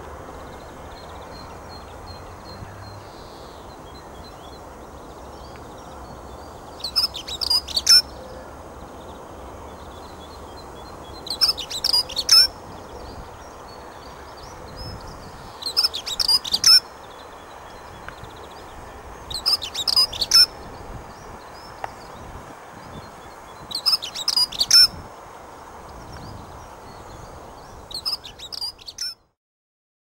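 Dunnock singing: a short, high, fast warbling phrase of about a second, repeated six times at intervals of about four seconds, over steady low background noise.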